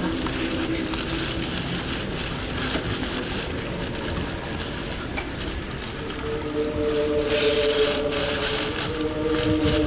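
Sound-design score: a dense hiss scattered with small crackles, joined about six seconds in by a sustained low chord that grows louder.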